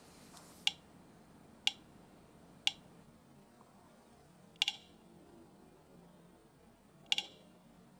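Short test clicks from an audio/video sync app, played through SoundPeats TrueEngine 3SE earbuds to measure their Bluetooth latency. Three come about a second apart, then two more about two and a half seconds apart, each a quick double click, as the test is played back at 40% speed.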